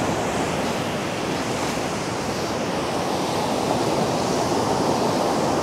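Ocean surf breaking and washing up a sand beach: a steady, even rush of waves.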